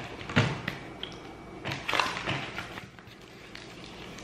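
Cardboard packing and metal license plates being handled on a table: a sharp knock about half a second in, a few short rustles and taps around two seconds, then quieter handling.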